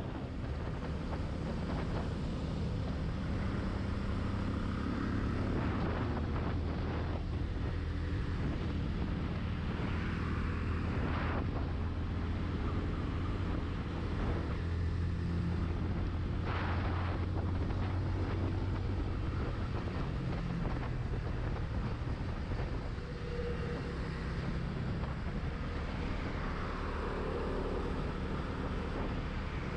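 Benelli TNT 25's single-cylinder engine running steadily while the motorcycle is ridden, with wind noise on the microphone.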